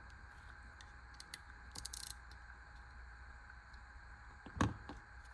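Small clicks and a short scrape from handling a cheap stainless folding pocket knife, then a sharp click with a smaller one just after it, near the end.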